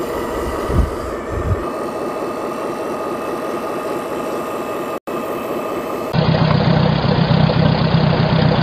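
Steady engine-like running sound, which turns louder and deeper about six seconds in.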